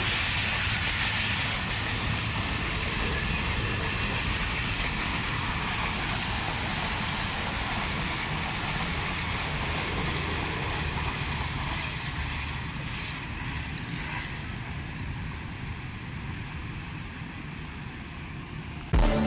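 Pakistan Railways express passenger coaches passing at speed: a steady rumble and rattle of wheels on rails, fading slowly over the last several seconds as the end of the train goes by.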